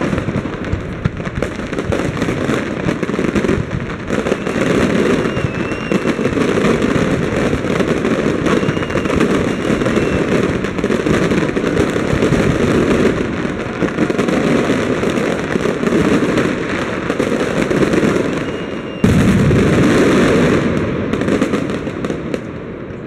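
Aerial fireworks display: a dense barrage of shells bursting, with rapid overlapping bangs and crackling and a few faint whistles. It gets suddenly louder about nineteen seconds in, then thins out near the end.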